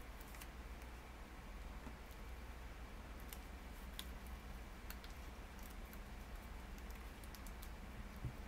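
Faint, scattered small crackles and clicks of origami paper being handled and creased as the petals of a folded paper flower are pulled down and pinched.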